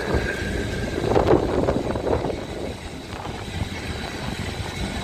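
Boat tram 600, an open-top boat-class tram, running along with the rumble of its wheels on the rails. A louder rushing swell comes about a second in and dies away.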